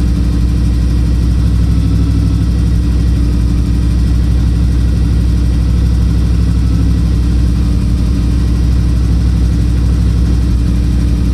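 Squarebody Chevrolet K5 Blazer engine running at a steady idle through aftermarket headers.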